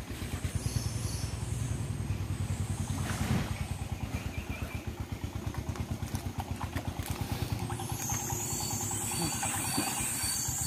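A small engine running steadily with an even, fast low pulse, joined by a high hiss near the end.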